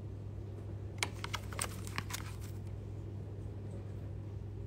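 A quick run of light clicks and taps from hands setting sliced strawberries onto a custard tart on a marble board, starting about a second in and lasting about a second and a half, over a steady low hum.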